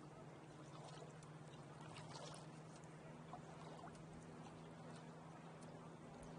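Faint water lapping and trickling against the hull of a small sailboat moving under sail in light wind, with scattered small splashy ticks. A faint steady low hum runs underneath.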